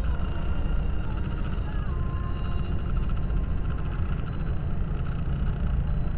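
Steady low rumble of a car driving along the road, heard from inside the cabin through the dash cam's built-in microphone.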